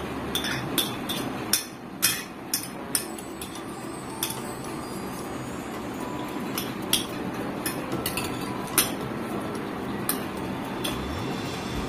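Spoons and forks clinking and scraping against plates as two people eat: irregular sharp clinks, bunched in the first few seconds and scattered after, over a steady background noise.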